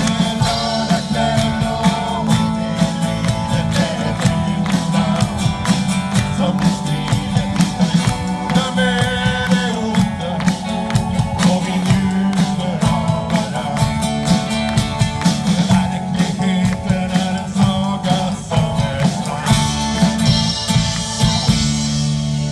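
A live rock band playing a song: acoustic and electric guitars, bass guitar, keyboard and a drum kit, with the drums keeping a steady beat.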